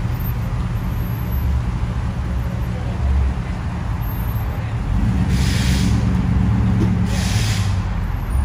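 Ram pickup truck engine running with a steady low rumble as the truck rolls in slowly, getting louder about five seconds in. Two short hisses come in the second half.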